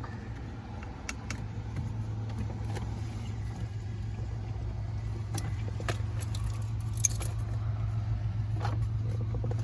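Light clicks and rattles of a plastic steering-column trim cover being handled and pushed into place, over a steady low hum.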